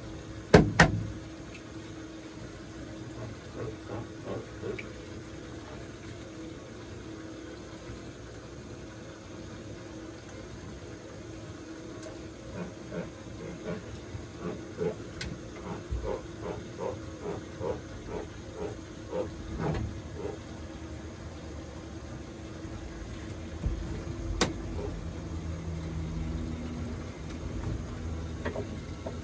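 Knocks and thumps on a boat deck as a large fish is handled there: one loud knock about half a second in, a run of short taps in the middle, another sharp knock later. A steady low hum runs underneath.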